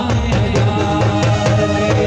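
Loud Indian folk music with a steady percussion beat and sustained melodic lines, with tabla-like drumming.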